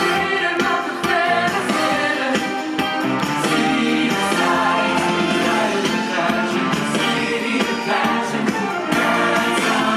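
Stage show music with singing, playing loudly and without a break.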